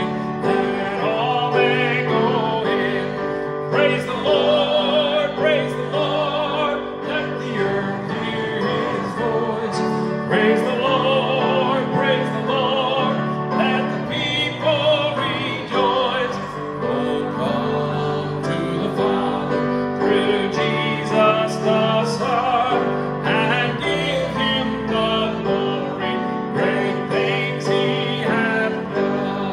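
A man singing a solo into a handheld microphone, his sustained notes carrying a wide vibrato, over steady instrumental accompaniment.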